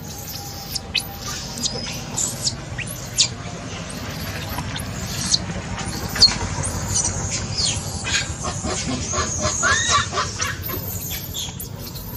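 Macaques squealing: many short, high-pitched squeaks and squeals overlapping, busier in the second half.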